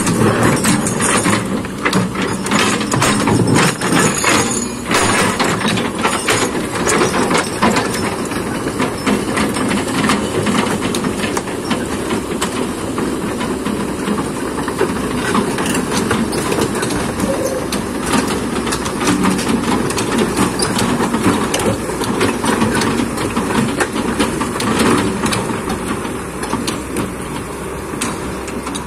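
Kobelco hydraulic excavator working in mud and rock: the diesel engine runs steadily under load while metal and stone clank and scrape over and over, most densely in the first few seconds.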